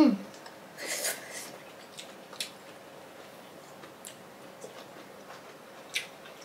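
Quiet mouth sounds of people eating jackfruit pods: a smack about a second in, then a few small clicks of lips and tongue spread a second or two apart.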